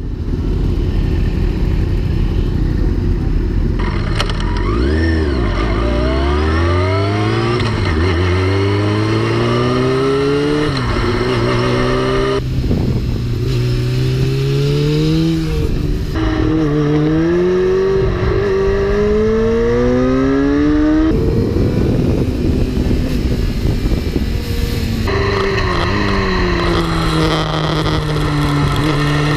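Sport motorcycle engine heard from on board: a low, steady run at first, then accelerating through the gears, its pitch climbing and dropping back at each shift, with wind rush over the rider's camera.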